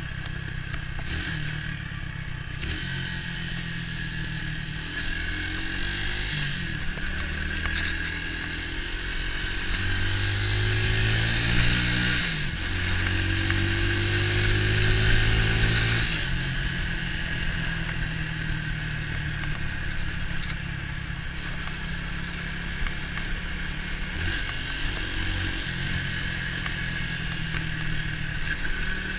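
Orcal Astor 125 motorcycle's single-cylinder four-stroke engine running under way. Its pitch rises as it revs up about a third of the way in, it runs louder for a few seconds, then falls back to a steadier, lower note about halfway through.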